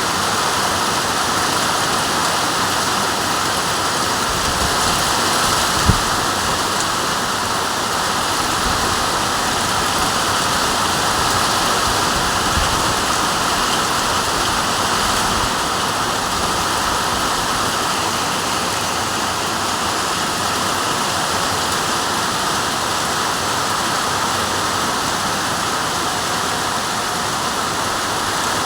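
Heavy rain falling steadily, an even hiss of rain with no letup. A single dull thump sounds about six seconds in.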